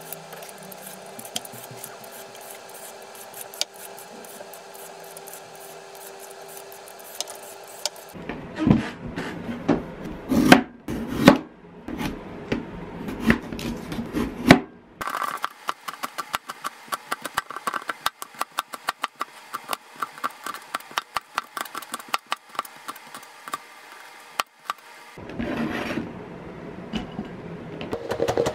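A carrot being scraped with a vegetable peeler, then cut with a cleaver on a cutting board. There are a few heavy, uneven chops about eight seconds in, then a long run of quick, even knife strokes as the carrot is sliced into thin strips.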